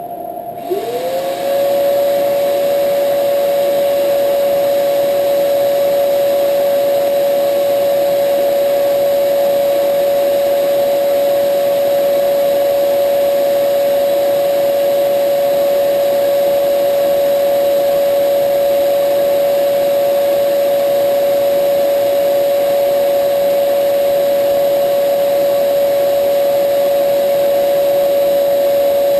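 Vacuum cleaner switched on about a second in, its motor whining up to speed and then running steadily and loud. A steady machine hum that was already running continues underneath.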